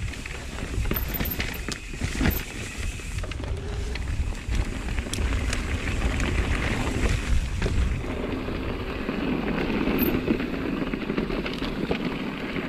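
Electric mountain bike riding down a dirt trail: a continuous rumble of tyres rolling over rough ground, with frequent sharp knocks and rattles from the bike over roots and bumps.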